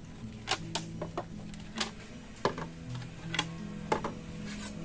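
Plates clinking together and being set down one after another on a wooden plank table: a string of sharp, irregular clicks and knocks, with soft background music underneath.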